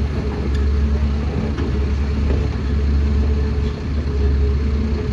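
Heavy diesel engine of the excavator and tipper running steadily, a loud low rumble with a steady hum above it and a few faint clicks.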